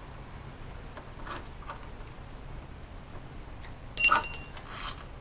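Small metal parts and hand tools being handled at a bench: a few faint ticks, then a sharp, ringing metal clink about four seconds in, followed by a short scraping rustle.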